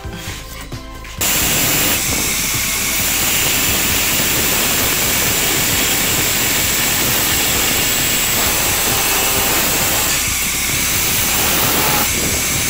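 Angle grinder with a thin cut-off disc cutting through a steel tube: a loud, steady grinding hiss that starts abruptly about a second in. Before it, music.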